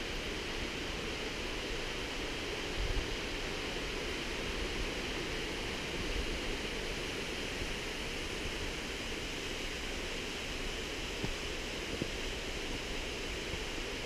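Steady rushing of a waterfall: an even hiss of falling water, with a few soft low thumps of footsteps on the rocky path.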